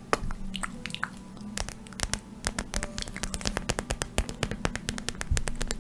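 Fingers tapping and scratching on a pad close to the microphone: a dense, irregular run of small sharp clicks and scratches, several a second.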